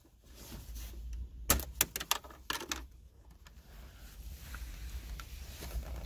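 Plastic trim surround beside a BMW F30's automatic gear selector being pried off with a nylon trim tool: a quick cluster of sharp clicks and snaps about one and a half seconds in as its clips let go, followed by soft handling rustle.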